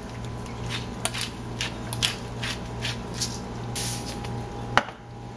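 Pepper mill grinding black pepper: a run of short grinding strokes, about two or three a second, then a single sharp click near the end.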